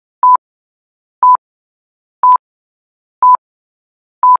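Countdown timer beeps: five short electronic beeps at one steady pitch, one a second, with silence between, ticking off the seconds of an on-screen countdown.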